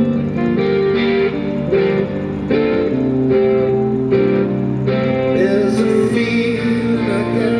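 Music track led by guitar, with steady held notes changing about once a second.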